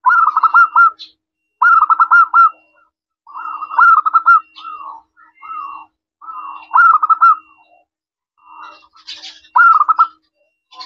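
Zebra dove (perkutut) singing: a series of quick, rippling coo phrases, each about a second long, repeated with short pauses between.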